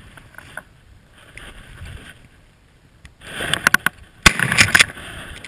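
Dry grass and brambles crackling and swishing against the camera and clothing as a hunter pushes through thick brush. Faint at first, then loud and dense with sharp snaps from about three seconds in, with one loud sharp crack a little after four seconds.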